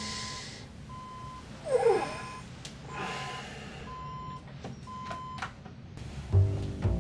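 Alarm clock beeping, a short high-pitched beep about once a second. About two seconds in, a sleepy groan with a falling pitch. Music comes in near the end.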